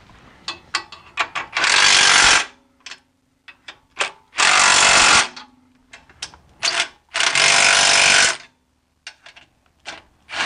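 Red Milwaukee cordless impact wrench hammering the exhaust flange nuts tight, in three bursts of about a second each. Short clicks and taps come between the bursts.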